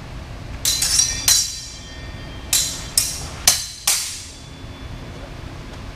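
Steel sabres clashing blade on blade: two quick flurries of sharp, ringing metallic strikes, three in the first and four about a second later.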